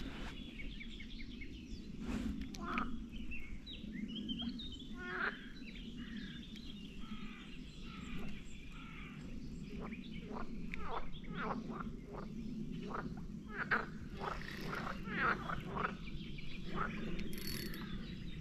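A chorus of frogs croaking steadily, with many short bird calls over it.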